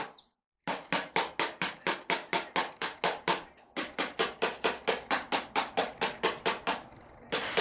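A fast, even run of sharp knocks, about five a second, with a brief pause about three seconds in.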